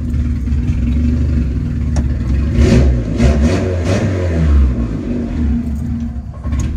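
Honda Civic's engine running just after a start, idling, then revved up and back down a few times in the middle before settling again.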